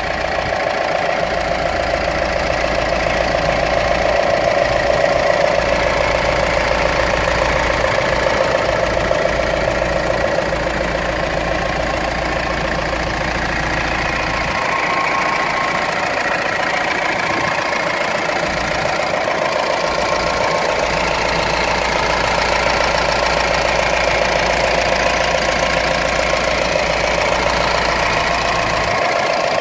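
Mahindra Roxor's 2.5-litre four-cylinder turbo diesel idling steadily, heard close up with the hood open.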